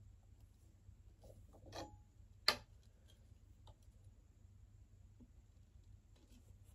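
Small handling noises from fitting the plastic and metal parts of a Eureka upright vacuum cleaner: faint rustles and ticks, with one sharp click about two and a half seconds in.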